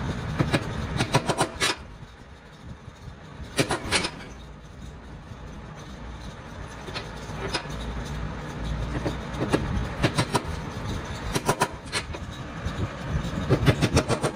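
Hand tools knocking on wood in short bursts of quick, sharp taps, several bursts a few seconds apart, over a steady low rumble.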